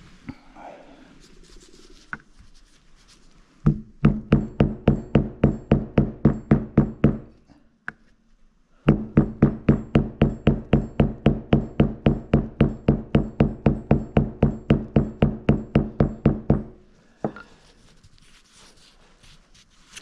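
Hammer striking a metal driver piece to knock a new 6902RS bearing into the Bafang G60 hub motor, about three to four blows a second, each ringing with the same low note. Two long runs of blows with a short pause between, then one last single knock.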